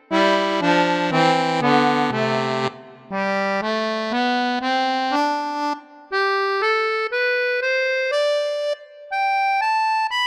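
Sampled small vintage Hohner accordion. It plays a few chords on the bassoon register with its deep, full reeds, then single notes climbing stepwise. About six seconds in it switches to the thinner, brighter clarinet register and climbs a scale note by note.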